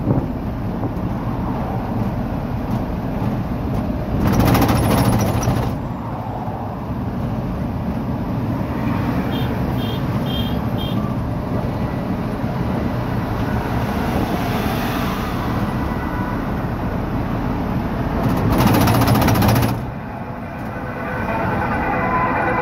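Steady engine and road noise heard inside a vehicle's cab while driving, with a rattling drone. It is broken by two loud hissing surges of a second or two each, about four seconds in and again about nineteen seconds in, and by four short high pips around the middle.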